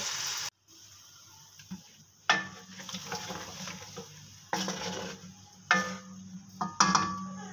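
A wooden spoon stirring chicken in simmering masala gravy in a metal karahi, scraping and knocking against the pan, with a light sizzle underneath. The sharp strokes come several times, about a second or two apart.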